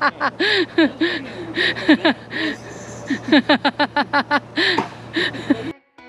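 A person laughing hard in quick, repeated bursts of 'ha' sounds that cut off abruptly near the end.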